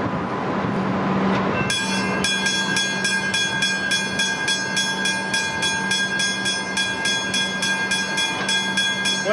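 Westinghouse hybrid level-crossing bell starting up about 1.7 s in and ringing in fast, even strokes, about three or four a second, as the crossing activates for an approaching train. Before it starts there is a steady rumble.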